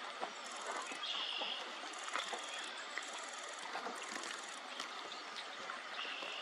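A nearby camera's shutter firing in rapid bursts, four bursts of about half a second each. Over a constant background hiss there is also a short, steady high tone, twice.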